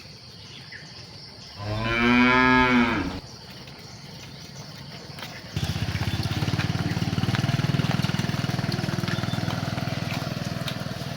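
A cow moos once, a loud call lasting about a second and a half. About halfway through, a steady low drone sets in suddenly and keeps going.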